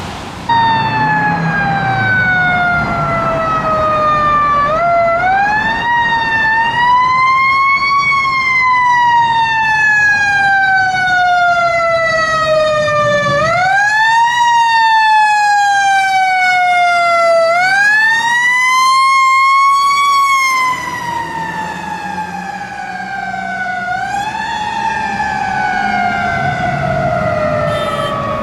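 Siren of a Pierce tower ladder fire truck responding, winding up quickly about five times and sliding slowly down in pitch between each rise.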